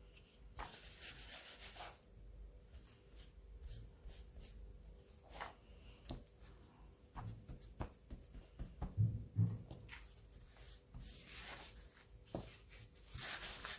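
Paper towel rubbed and dabbed over damp stamped paper and a craft mat, blotting off water and ink: faint, intermittent brushing strokes with a few light taps.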